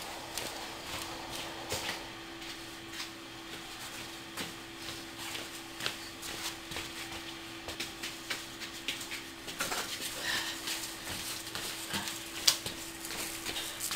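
Footsteps on a tiled floor and luggage being carried and handled, with scattered knocks and clicks; the sharpest knock comes near the end as a suitcase is lifted. A steady faint hum runs underneath.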